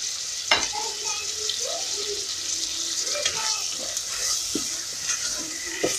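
Onions, smoked fish and freshly added spring onions frying in oil in a metal pot, a steady sizzle, with a sharp click about half a second in and another near the end.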